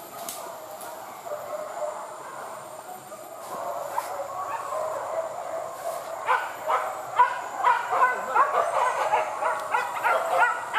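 Pack of hunting dogs giving tongue while chasing a wild boar: a wavering chorus of baying that breaks, about six seconds in, into louder rapid yelping, several yelps a second.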